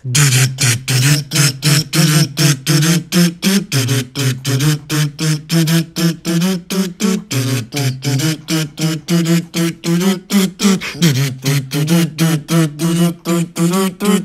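Intro theme music made of short, clipped stabs, about four a second, stepping back and forth between two low notes.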